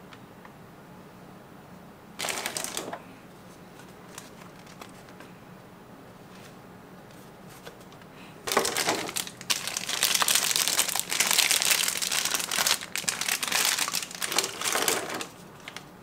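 Plastic packaging crinkling as it is handled. There is a short rustle about two seconds in, then a long stretch of loud, irregular crinkling from about halfway through until near the end.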